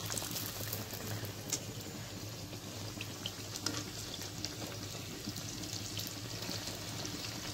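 Dal puris deep-frying in hot oil: a steady sizzle with many small crackles and pops.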